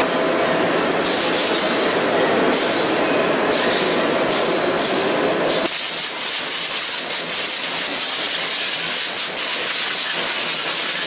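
Conveyor machinery on a date-packing line running with a steady mechanical noise and frequent light clicks and knocks. About six seconds in, the lower part of the noise drops away and the clicks carry on.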